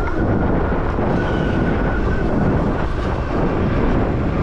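Wind rushing over the camera microphone on an electric mountain bike ridden at about 20 mph: a loud, steady rumble with a faint thin whine that comes and goes.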